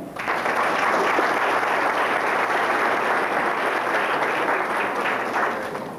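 Audience applauding. The applause starts suddenly, holds steady and thins out near the end.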